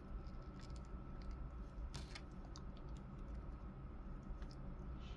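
Faint, scattered clicks and taps of small plastic action-figure parts being handled: the head pulled off and a plastic staff accessory fitted over the figure's arm and head. A faint steady hum runs underneath.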